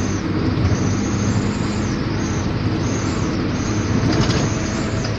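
Truck engine running with a turbo whistler fitted to its exhaust: a steady low engine hum under a high whistling hiss that swells and dips a few times.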